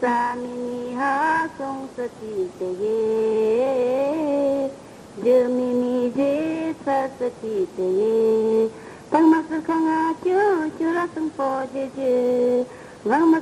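A high solo voice singing a slow melody of long held notes that slide up and down between pitches, with short breaths between phrases.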